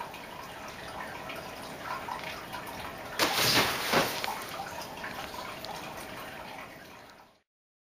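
Nylon pop-up pet tent rustling, with light scratches and taps, as a kitten scrambles against it. About three seconds in there is a louder rustle lasting about a second, and the sound cuts off abruptly near the end.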